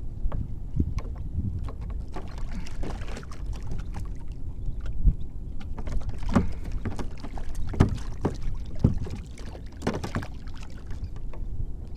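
Water slapping and lapping against a plastic kayak hull in short, scattered slaps, over a steady low rumble.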